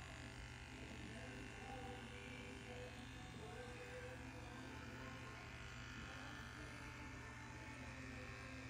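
Cordless pet grooming clipper running with a steady, faint buzz.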